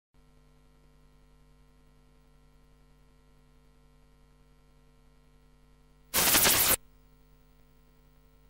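Faint steady electrical hum from the recording chain, with a sudden loud burst of noise lasting about half a second a little after six seconds in.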